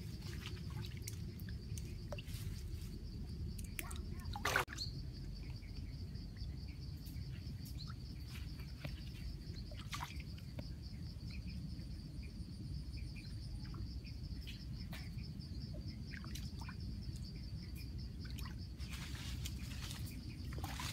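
Outdoor rural ambience: a steady high-pitched drone and a low rumble, with scattered light ticks and one short, louder sound about four and a half seconds in.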